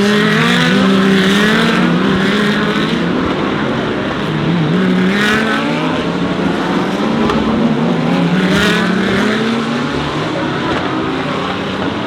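GT3 race cars running at speed, their engines rising and falling in pitch through gear changes, with cars rushing past about five seconds in and again near nine seconds.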